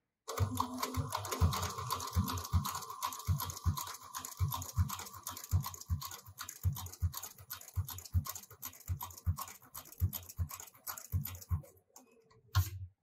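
HighTex 204-370PRO post-bed sewing machine stitching leather with a single needle at a slow pace, about two to three needle strokes a second, each a low knock, with a faint motor whine in the first half. It stops about a second before the end, followed by one sharp click.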